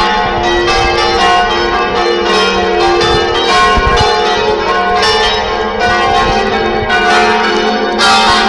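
Church bells pealing the midday ringing, several bells struck in quick succession so that their long ringing tones overlap without a break.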